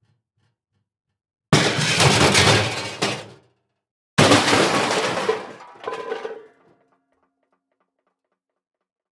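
Two separate crash impact sound effects, each a sudden loud hit with a noisy tail that dies away over about two seconds. The second has a further smaller hit near its end and a short ringing tone as it fades.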